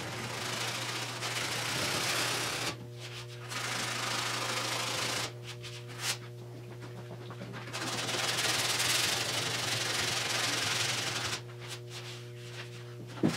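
Hand block-sanding body filler on a car roof with 80-grit paper: scratchy back-and-forth strokes in three long stretches, with short pauses about three and five seconds in and again near the end.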